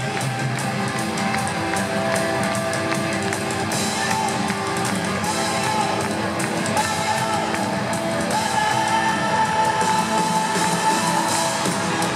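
Live rock band playing loudly, with guitars and drums and a male singer's voice over them, recorded from the audience in a large hall.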